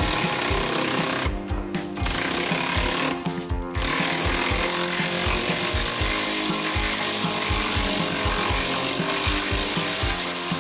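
Cordless electric ratchet running in bursts as it undoes a bolt, with two short pauses in the first few seconds. Background music with a steady beat plays underneath.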